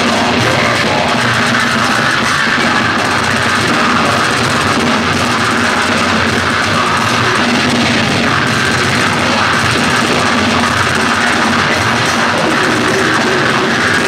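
Technical death metal band playing live: distorted guitars, bass and a Pearl drum kit in a loud, dense, unbroken wall of sound, heard from the audience.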